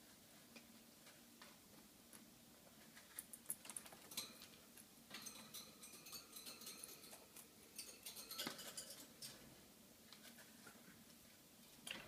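Faint clicks and light pattering from a cockatiel at a small dish on the cage floor, busiest from about three to nine seconds in.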